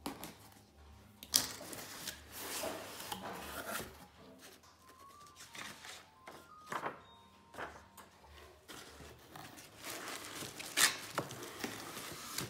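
A utility knife slitting open a cardboard shipping box, then the box lid and flaps being handled and paper rustling as sheets are lifted out of foam packing. Scraping and rustling throughout, with a couple of sharp knocks.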